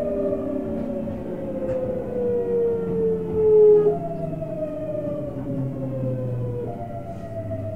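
Tokyu 7700 series electric train's VVVF inverter and traction motors whining, heard from the front car. The pitch falls steadily, typical of the train slowing under braking, and jumps back up about four seconds in and again near the end as the inverter changes mode.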